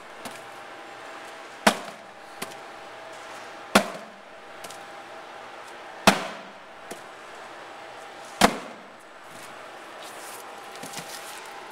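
Packed corrugated cardboard box being drop-tested, dropped onto a concrete floor four times about every two and a half seconds, each landing a sharp thud. A smaller knock follows two of the drops.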